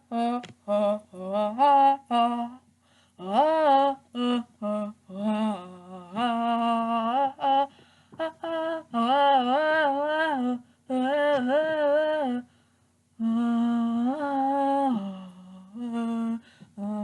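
A person humming a wordless tune in short phrases of held, slightly wavering notes.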